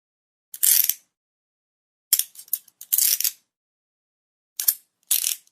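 Handcuffs being locked on, as a sound effect: short clicking and rattling noises in several separate bursts, with a quick run of clicks in the middle.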